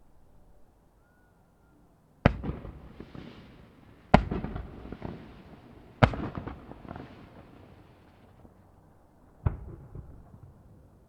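Aerial firework shells bursting: four loud bangs, the first three about two seconds apart and the last after a longer gap. Each is followed by a second or two of crackling and a fading rumble.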